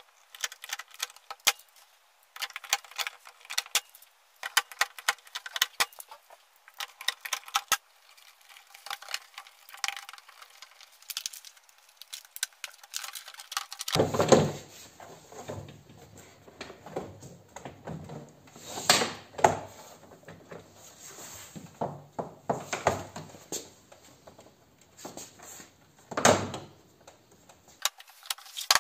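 Small clicks and light rattling of parts and hand tools as a loudspeaker is fitted into a Peugeot 407's bare front door. About halfway through, this gives way to louder knocks and thumps as the plastic door trim panel is pressed onto the door, the biggest near the middle and again near the end.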